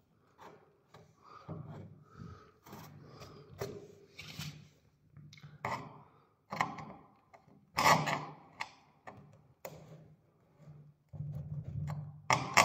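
Flat-head screwdriver tapping and knocking on a repaired crack in a fiberglass bathtub, irregular knocks of varying loudness, the loudest about eight seconds in: a tap test of how strong the repair is.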